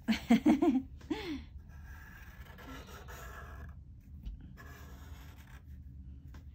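Felt-tip marker pens scratching across paper in two stretches of drawing strokes. Near the start there is a brief wordless voice sound with a gliding pitch, which is the loudest thing.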